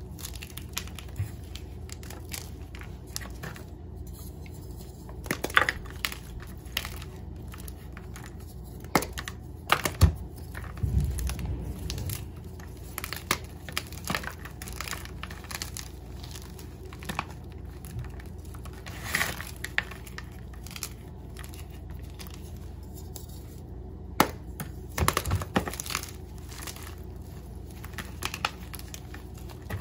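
Hands crushing and crumbling chunks of Ader gym chalk in a bowl: irregular dry crunches and crackles with soft powdery rubbing, loudest about ten to twelve seconds in and again near twenty-five seconds.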